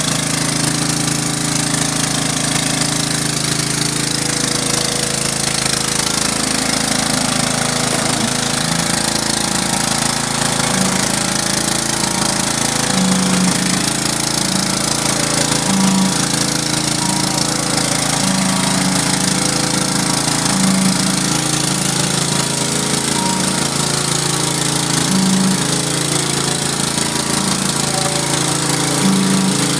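Pressure washer running steadily while a 15-inch surface cleaner sprays high-pressure water onto concrete, a continuous hiss over a steady low hum.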